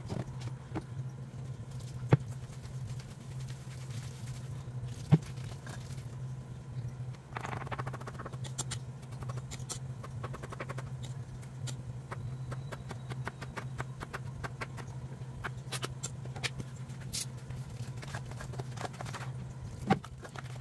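Kitchen prep sounds: a sharp knock at about two seconds and again at five, then a scatter of small knife taps and clatter as green chillies are chopped on a plastic cutting board and the batter is worked in a steel bowl, all over a steady low hum.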